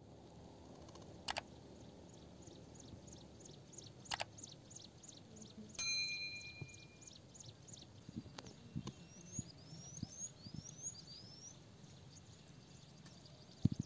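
Faint outdoor ambience with birds calling. One bird repeats a quick high chirp about three times a second, later a few short rising whistled notes are heard, and three sharp clicks come in the first half.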